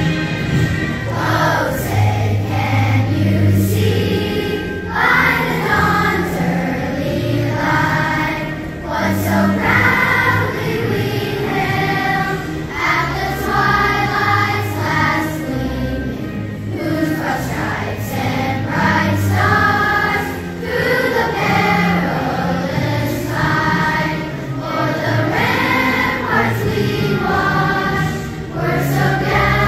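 A large choir of elementary-school children singing a song together over an instrumental backing track, the sung notes changing every second or so.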